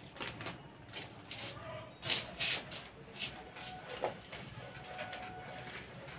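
A duster wiped across a whiteboard in a series of short, faint swishing strokes, the loudest pair about two seconds in.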